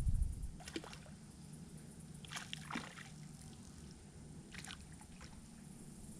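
Light water splashing in three short bursts, about a second, two and a half seconds and five seconds in, as from a small fish or lure at the pond's surface.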